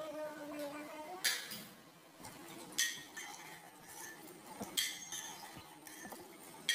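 A metal ladle stirring thick meat curry in an aluminium pressure cooker, clinking sharply against the pot several times with soft stirring noise in between.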